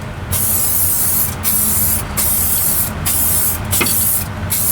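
Aerosol spray paint can spraying in several short bursts of hiss, each about half a second to a second long, with brief breaks between them.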